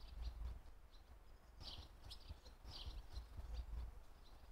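Faint, short high bird chirps scattered through, a few in quick clusters, over a steady low rumble.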